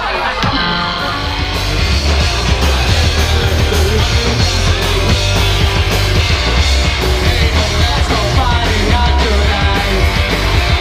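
Live punk rock band playing: electric guitars, bass guitar and drum kit with a steady, driving beat and heavy bass.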